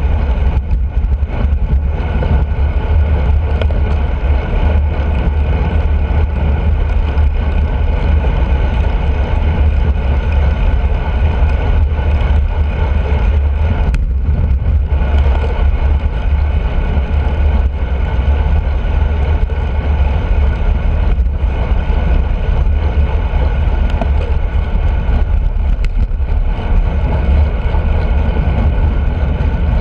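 Steady wind buffeting and deep road rumble picked up by a camera on a road bike's handlebars while riding on tarmac.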